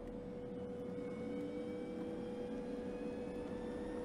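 Audi Q4 e-tron electric SUV driving on the road: a steady hum over tyre and road noise, with a faint whine that climbs slowly in pitch from about a second in as the car gathers speed.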